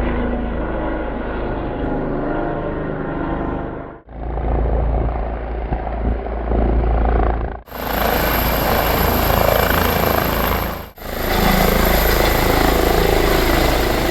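Rescue helicopter's rotor and turbine engines running steadily, heard in several short clips joined with abrupt cuts about 4, 7.5 and 11 seconds in. The later clips sound brighter, with a thin, high, steady whine over the rotor noise.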